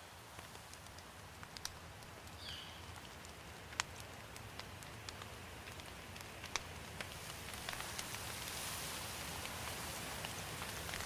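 Rain beginning: scattered single drops at first, then a steady rain hiss that grows louder towards the end.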